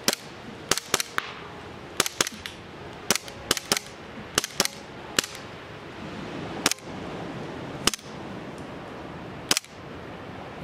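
Gas blowback airsoft Glock-type pistol fitted in an APS Action Combat Pistol SMG carbine kit, firing about fifteen semi-automatic shots at uneven intervals: some single, some in quick pairs and triples. Each shot is a sharp crack with the slide's clack.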